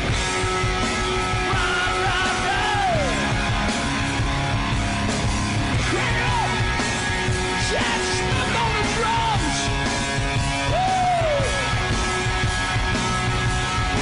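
Hard rock band playing: drums, electric guitar and bass under a lead singer's yelled, wailing vocal lines that slide up and down in pitch several times.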